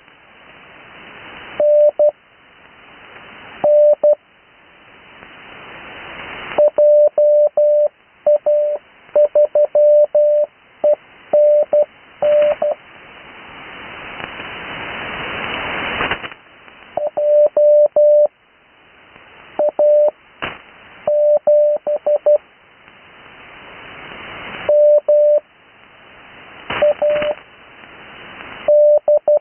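Morse code (CW) on the 80 m amateur band heard through a radio receiver: a single mid-pitched tone keyed into dots and dashes. The characters are sent one at a time with gaps of a second or two between them, Farnsworth-style spacing for learners. Receiver hiss swells in each gap and drops away when the tone returns.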